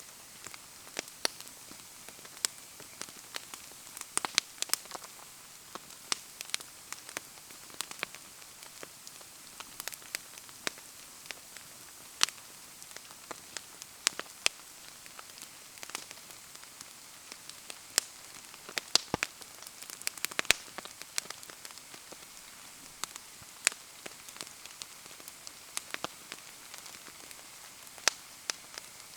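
Bonfire burning in the rain: steady rain with irregular sharp pops and crackles, several a second.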